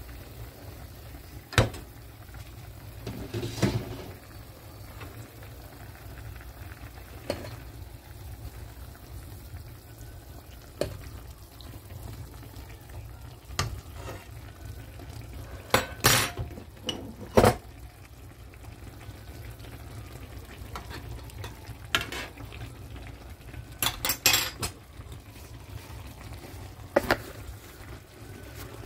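Chicken simmering in broth in a frying pan, under a steady low bubbling, with a glass pan lid and utensils knocking and clinking against the pan about ten times, the loudest knocks about sixteen and seventeen seconds in.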